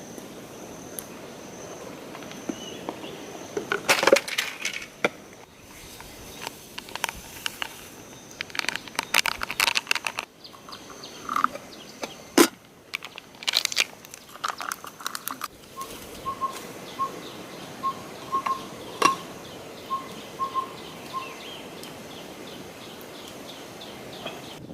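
Dry leaves and twigs crackling and snapping in irregular bursts, over a steady high insect drone. Later a bird repeats a short piping note a dozen times, evenly spaced.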